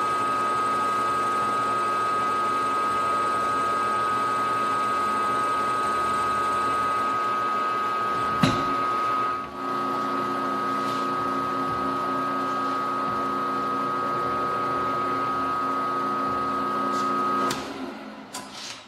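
Milling machine spindle running steadily with a high whine while holes are bored and chamfered in bar stock. There is a sharp knock about halfway through, and near the end the running stops with a few clicks.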